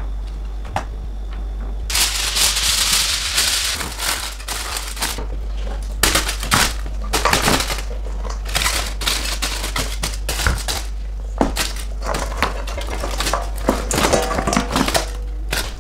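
Aluminium foil crinkling, then fried chicken pieces being tipped from a steel bowl onto foil in a plastic cooler, with irregular knocks, rustles and clatter.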